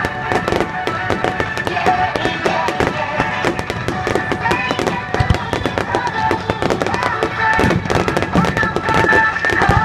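Fireworks bursting and crackling in quick succession over music from loudspeakers, as in a music-synchronized fireworks show.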